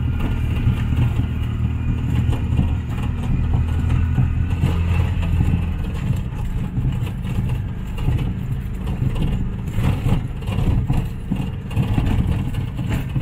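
A three-wheeled mototaxi's engine running as it drives, heard from inside its open cab. The engine hum holds steady at first, then wavers and roughens about six seconds in.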